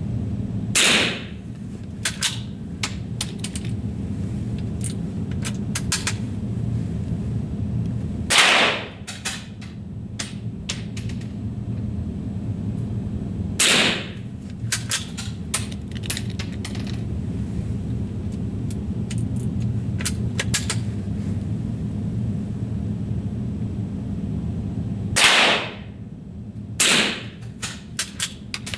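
Rifle shots, five in all, each a sharp crack with a short ringing tail; the last two come about a second and a half apart. Lighter clicks and knocks fall between the shots, over a steady low hum.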